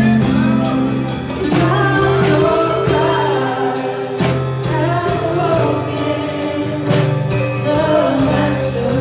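Live gospel worship song with a band, a steady drum beat of about two strokes a second and sung vocal lines.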